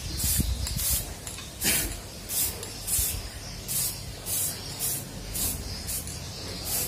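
Aerosol spray-paint can sprayed in short, repeated bursts of hiss, roughly two a second, one of them about a second and a half in longer and fuller.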